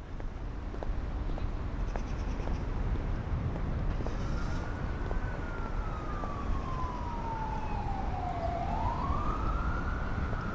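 A siren wailing over a steady low rumble. Its single tone enters about four seconds in and slides slowly down, climbs back up near the end, then starts falling again.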